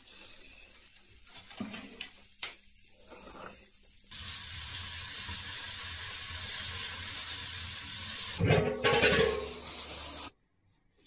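Light knocks of a wooden spatula on a plate, then the steady hiss of a wood fire burning in a brick stove's firebox. Near the end comes a louder rush and clatter as the lid is lifted off a wok of steamed buns, releasing the steam.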